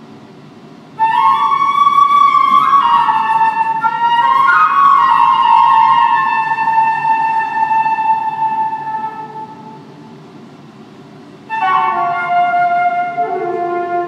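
Solo flute playing: a loud phrase enters about a second in, moves through a few notes and settles on a long held note that slowly fades away, then a second phrase begins near the end.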